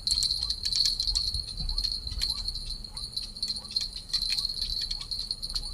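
Small bell jingling in quick, irregular shakes over a steady high-pitched ringing, with a low wind rumble.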